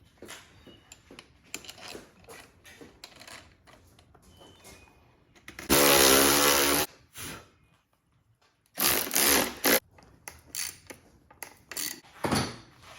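Hardware and tools being handled: scattered clicks, rattles and rubbing, with a loud, steady mechanical buzz lasting about a second midway and several more loud short bursts a few seconds later.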